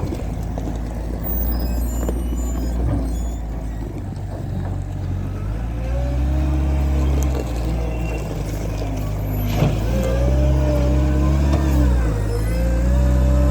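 Engine running steadily, revving up and easing back down a few times, first about six seconds in and again toward the end.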